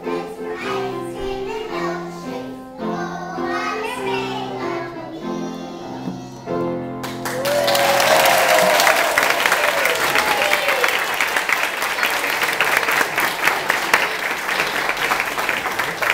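A group of young children sings a song together, with steady held notes, ending about seven seconds in. The audience then breaks into applause, which continues.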